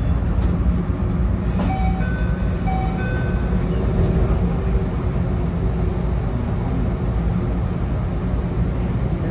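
Enoden electric train standing at a station platform: a steady low hum from the train's onboard equipment. About a second and a half in, a high hiss starts and lasts a couple of seconds, with a few short tones sounding during it.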